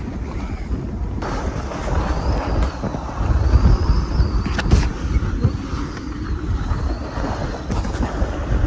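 Wind buffeting the microphone over water rushing and breaking along the lee side of a small sailboat, a Contessa 26, heeled hard while sailing close to the wind. It grows louder around the middle, with one sharp slap.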